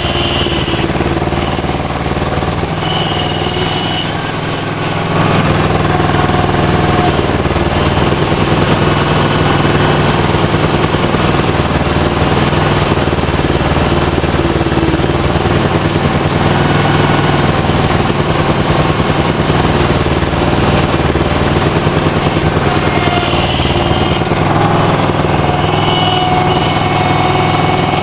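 Aquatic weed harvester's engine running steadily, getting louder about five seconds in and holding there.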